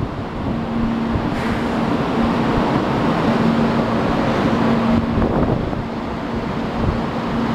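JR Kyushu 800 series Shinkansen train running in alongside the platform and slowing to a stop: a steady rushing noise with a steady low hum.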